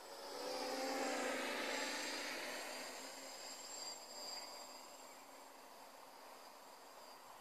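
Cheerson CX-20 quadcopter's motors and propellers buzzing as it passes close by, loudest about a second in, then fading as it flies off into the distance.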